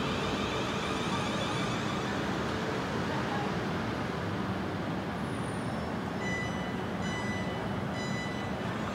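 Electric multiple-unit train running through, a steady rumble of wheels and running gear. Short high-pitched tones come and go in the last few seconds.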